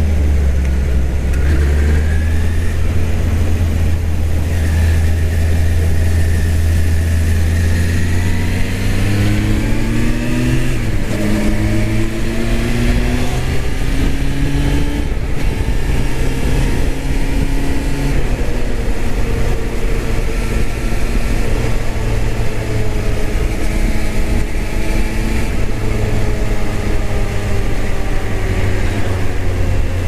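Suzuki Bandit 600's inline-four engine under way: low and steady at first, then pulling hard about a third of the way in, its pitch rising in several steps as it shifts up through the gears, before settling to a steady cruise. Wind noise runs under it.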